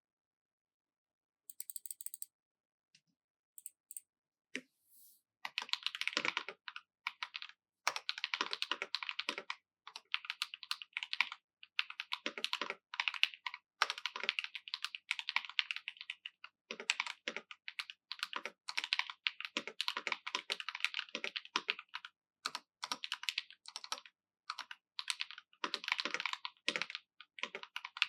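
Typing on a 65% mechanical keyboard with Akko CS Lavender Purple factory pre-lubed tactile switches in a brass plate, under PBT keycaps: runs of quick keystrokes with short pauses between them. A few scattered light clicks come first, and steady typing gets going about five seconds in.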